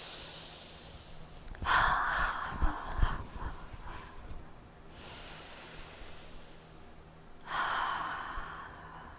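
A woman breathing deeply in and out twice as a paced breathing exercise: a soft hissing inhale, a louder rushing exhale, then another inhale and exhale. A few soft low thumps come during the first exhale.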